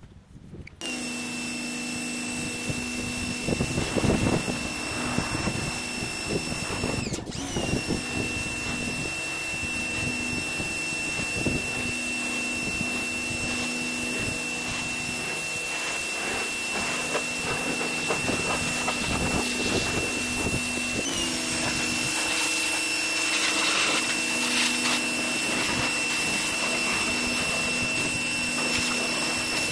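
Pressure washer running, a steady high motor whine over the hiss of its water jet spraying a car's body panels. The whine changes pitch briefly twice, about seven seconds in and again past twenty seconds.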